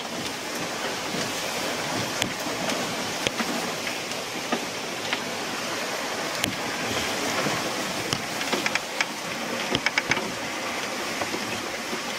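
Rush of water and spray along a Tricat 25 trimaran's hulls sailing at speed, with wind on the microphone. Scattered sharp ticks, most of them in the second half.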